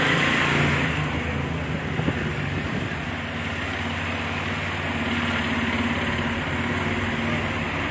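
Engine of a slow-moving vehicle running steadily, a low even hum, with street traffic around it.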